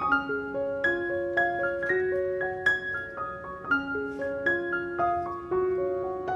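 Background piano music: a gentle melody of single struck notes that ring and fade, several notes a second.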